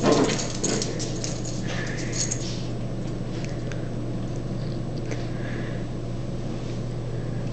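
Small dog's claws clicking on a tile floor as it goes after its toy. A few short, faint, high dog whines follow, over a steady low hum.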